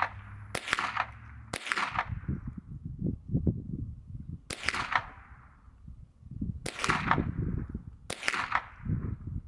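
Five rifle shots fired at a target, spaced unevenly one to three seconds apart. Each is a sharp crack with a short echoing tail.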